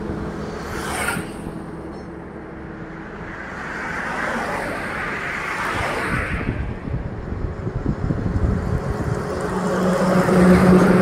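Highway traffic: engines running steadily while vehicles pass, swelling about halfway through and again near the end, with a brief hiss about a second in.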